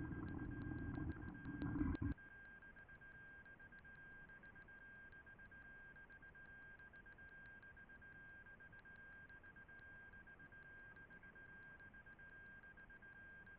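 A muffled low noise for about two seconds that cuts off abruptly. It is followed by faint hiss with a steady, thin high-pitched tone.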